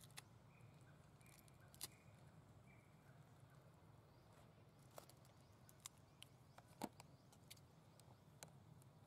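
Near silence: a faint steady low hum with a few scattered faint clicks and ticks, the sharpest about seven seconds in.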